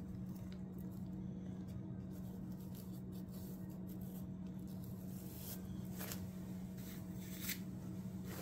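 A steady low hum in a small room, with faint rustles of nylon tent fabric being touched by hand, twice in the second half.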